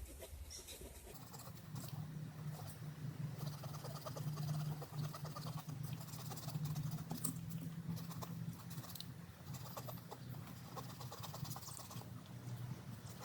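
Small saw blade of a Leatherman Sidekick multi-tool sawing back and forth through a wooden stick: faint, repeated rasping strokes. A low steady hum comes in about a second in.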